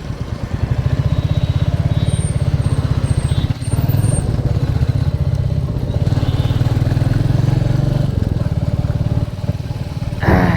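Royal Enfield motorcycle engine running steadily under way, its exhaust pulses even, with a brief drop about three and a half seconds in and a short louder sound near the end.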